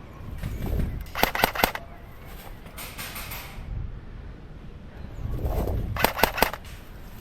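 Airsoft gun firing two quick bursts of three shots, the bursts about five seconds apart.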